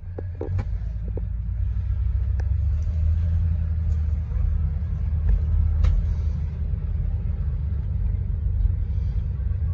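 The 1966 Pontiac Catalina's 389 V8 and tyres heard from inside the moving car: a steady low rumble that grows louder over the first couple of seconds as the car gets under way. A few light clicks come in the first second.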